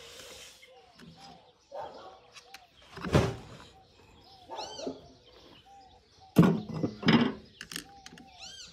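Metal parts of a tractor's power take-off clunking as they are worked loose and pulled out: one heavy knock about three seconds in and two more near the end. Birds chirp repeatedly in the background.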